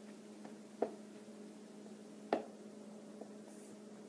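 A steady low electrical hum, with two sharp short knocks about a second and a half apart and a fainter one near the end, from objects being handled on a tabletop.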